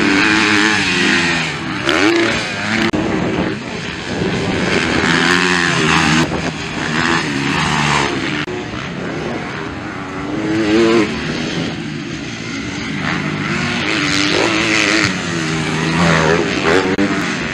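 250cc motocross bikes racing on a dirt track, their engines repeatedly revving up and dropping back as they pass.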